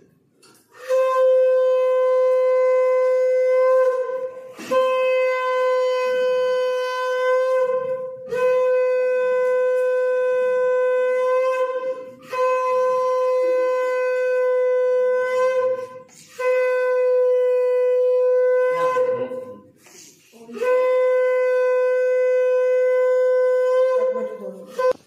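Shankha (conch shell) blown in six long blasts of about three to four seconds each, every blast a single steady note, with short breaks for breath in between. It is the auspicious conch call that accompanies a Bengali Hindu wedding rite.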